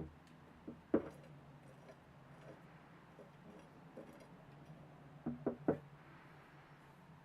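A few light knocks of hard objects being handled or set down: one about a second in, and three in quick succession near the end, over a faint steady hum.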